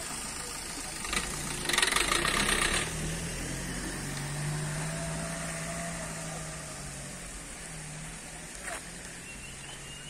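A small Suzuki car drives slowly past close by and away, its engine running. A brief louder rush of noise comes about two seconds in as it goes by, and the engine hum fades as it moves off.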